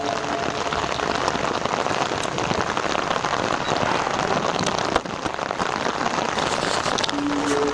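Steady rain falling on a surface, an even dense patter, with a single sharp tick about five seconds in.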